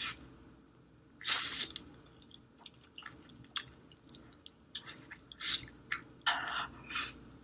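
Close-miked chewing of spicy ramen noodles: wet mouth clicks and smacks, with several short hissing bursts about a second in and again near the end.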